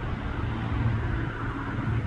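Low engine rumble of a passing road vehicle with a haze of traffic noise, louder than the moments before.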